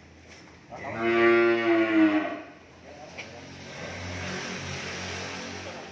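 A cow moos once, loud and drawn out for nearly two seconds, starting about a second in, its pitch sagging slightly at the end. A quieter, rough, breathy sound follows for about three seconds.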